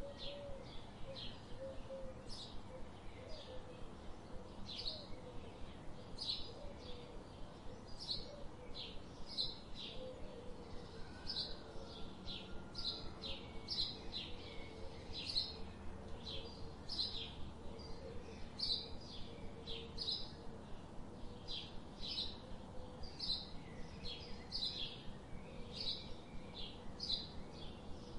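A small bird chirping over and over in short, high notes, a couple each second.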